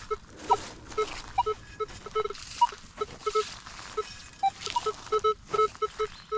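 Metal detector sounding many short, irregular beeps as the coil sweeps the ground. Most are a low tone, with a few higher tones among them. The low 'grunting' tones are typical of iron junk in the soil.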